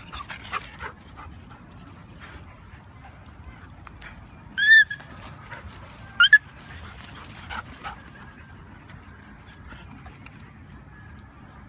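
A dog yelping twice, two short high-pitched yelps about a second and a half apart.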